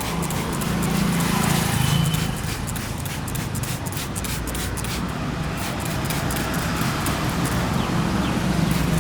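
A quick, irregular run of sharp taps and clicks from the barber's hands or tools at work on a customer's head, thick for the first five seconds and then sparser, over a steady low hum.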